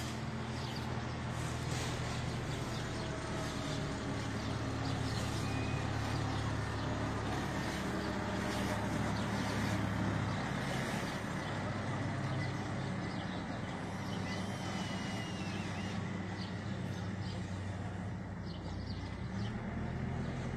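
Backhoe loader's diesel engine running steadily at low revs.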